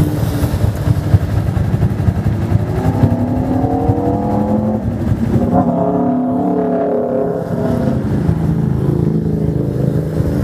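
Motorcycle engines running at low speed in slow traffic, a steady rumble throughout. A few seconds in, another motorcycle's engine note rises as it accelerates, and about six seconds in a sport bike passes the other way, its note falling.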